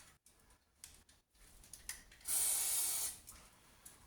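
A short burst of aerosol lubricant sprayed from a can, an even hiss lasting under a second about two seconds in, with a few faint clicks before it. The lubricant is going onto a long, tight suspension bolt to help free it.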